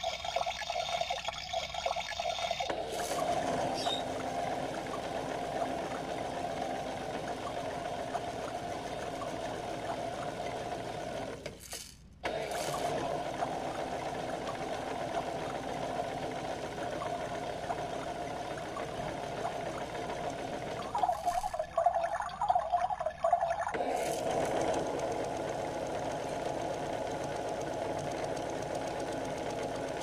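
Kid Connection toy washing machine running a wash cycle. It opens with a short watery hiss, then its small drum motor hums steadily. The hum stops for a moment about twelve seconds in and starts again, and turns rough and knocking for a few seconds past the twenty-second mark.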